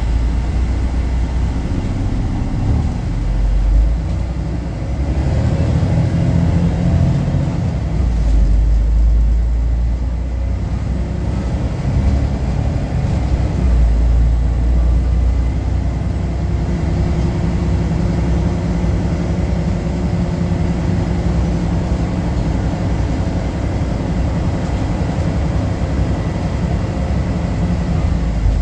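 Interior sound of a Volvo B12BLEA articulated bus on the move: the rear-mounted diesel engine and Voith DIWA automatic gearbox running under a low rumble of road and tyre noise. The engine note shifts in the first half and settles into a steadier hum from about halfway.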